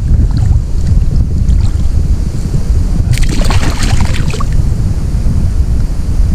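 Wind rumbling on the microphone, with a splash of water about three seconds in lasting just over a second as a small caught fish thrashes at the surface in shallow water while held by hand for release.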